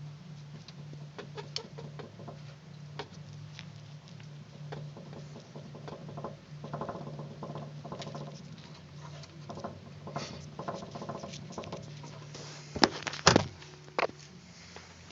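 Knocking in the right-hand side of a Citroën C4's steering: irregular light clicks and knocks over a steady low hum, with a few loud sharp knocks near the end. The knocks are the steering fault itself.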